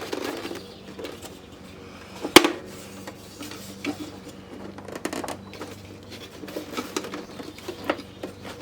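Scattered plastic clicks and light rattles from a boombox casing and its parts being handled and taken apart, with one sharp, loud click about two and a half seconds in.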